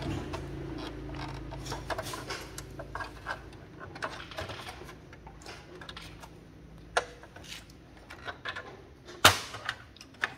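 Screwdriver ticking and clicking against screws and the plastic cover of a Brother HL-L2321D laser printer's laser scanner unit as the screws are backed out, with light knocks from handling the plastic. A sharp louder click comes about seven seconds in, and the loudest about nine seconds in.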